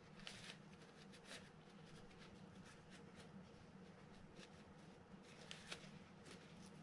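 Near silence: faint rustling and rubbing of a paper shop towel wiping a small metal reel gear, over a low steady hum.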